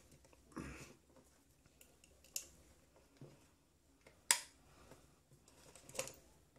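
A few sharp clicks from a plug being pushed into a wall socket and the socket switch flipped on, powering up a repaired LED ceiling panel light for a test, with a soft rustle of handling about half a second in; the sharpest click falls just past the middle.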